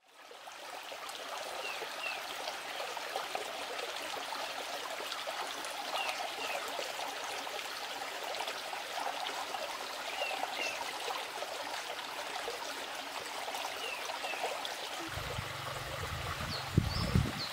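Stream water running and trickling over rocks, steady throughout after fading in at the start. A short two-note chirp repeats about every four seconds. In the last two seconds a low rumble and a couple of sharp thumps come in.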